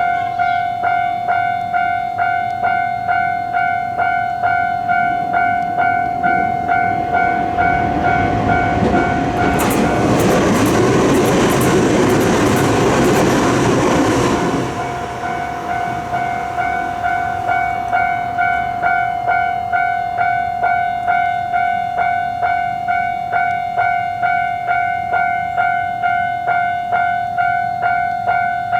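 Japanese level-crossing warning bell ringing in a fast, even, repeating clang. A train passes through the crossing for about six seconds in the middle, its wheels clacking over the rails, louder than the bell, then the bell rings on alone.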